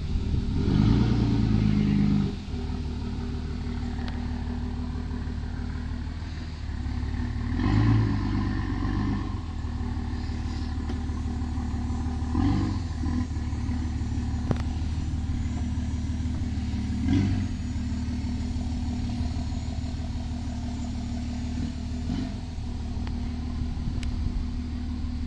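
The tow vehicle's engine running at low revs while backing a camper trailer, getting louder in several short swells as it is given more throttle.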